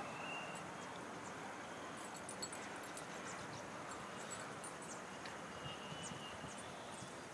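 Open-air ambience: a steady hiss with a cluster of sharp clicks about two to three seconds in, and a few faint short high tones.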